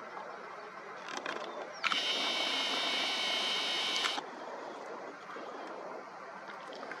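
The Nikon Coolpix P1000's zoom motor whines steadily for about two seconds as the lens zooms out. The whine starts and stops abruptly with a click at each end, over a faint outdoor hiss.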